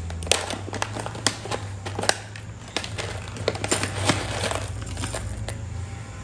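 A paper-and-foil coffee bean bag crinkling and rustling as it is opened and handled, with a run of sharp clicks and taps, over a low steady hum.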